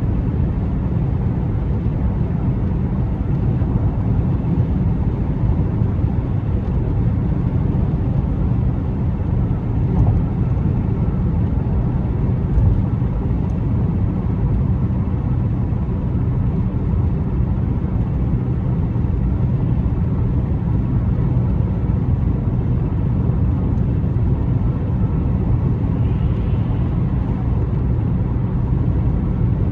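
A car driving on the road: steady tyre and engine noise, a low even rumble, with two light bumps about ten and twelve seconds in.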